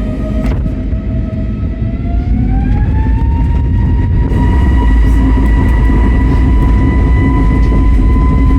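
Airbus A320neo's engines heard from inside the cabin spooling up to take-off thrust: a whine rising in pitch a couple of seconds in, then holding steady over a loud low rumble that grows louder.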